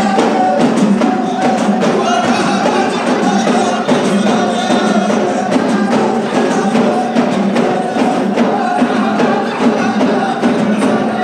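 Ahidous troupe beating frame drums (allun) in a dense, steady rhythm, with voices singing along.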